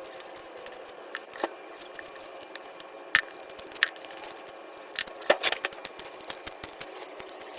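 Scattered clicks and sharp taps of work being handled, over a steady hiss. A cluster of louder knocks comes between about three and six seconds in.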